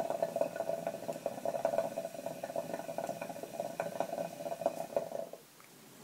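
Water bubbling in the base of a Mya Petite hookah as one long draw is pulled through it: a steady gurgle with many small crackling pops, stopping about five seconds in.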